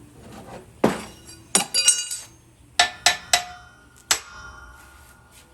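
A hammer or other steel tool striking steel in a series of sharp, ringing blows, about eight in three seconds. The blows are shocking a tight shackle pin held under jack pressure, to de-stress it.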